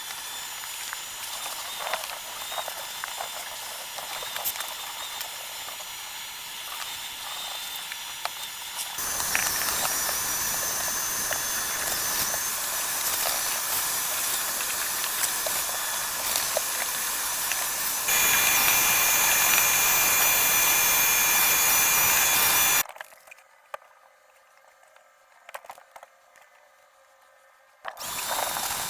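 A power tool used for cleaning runs steadily with a whine, in several cut-together clips that change abruptly. A much quieter stretch comes near the end.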